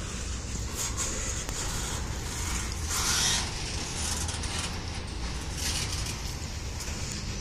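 Cars of a Norfolk Southern intermodal freight train rolling slowly past: a steady low rumble of wheels on rail with metallic scraping and rubbing. A louder scraping hiss rises briefly about three seconds in.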